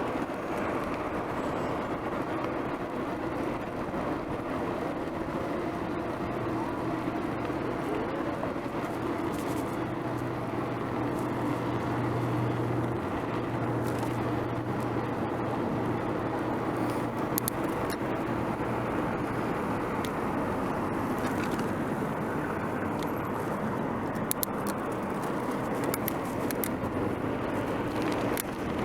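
Steady road noise heard from a moving bicycle: a rush of wind and tyres with car traffic running nearby, a low engine hum held for several seconds around the middle. Scattered sharp clicks come in the second half.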